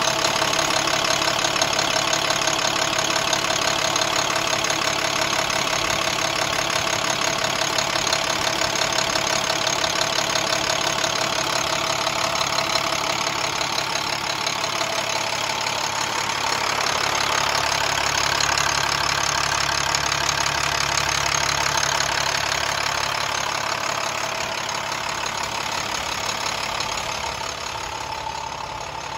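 2008 Maxxforce DT466 inline-six turbo diesel idling steadily, with its belt tensioner broken. A little fainter near the end.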